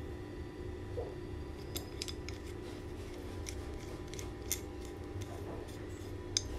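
Lobster 300 mm adjustable wrench being handled, its movable jaw slid and its worm screw turned: a run of light, irregular metallic clicks and ticks, two of them sharper near the middle and near the end.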